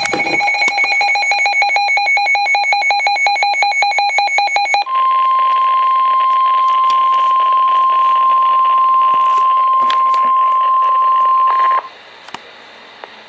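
NOAA weather radio receivers sounding a warning alert: a rapid electronic beeping for about five seconds, then the steady 1050 Hz weather radio warning alarm tone for about seven seconds, which cuts off to faint radio hiss near the end. The alert announces a Special Marine Warning.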